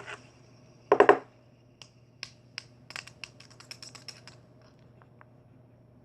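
Hands handling a small plastic toy: one louder, brief scuffling burst about a second in, then a run of light, irregular clicks and taps.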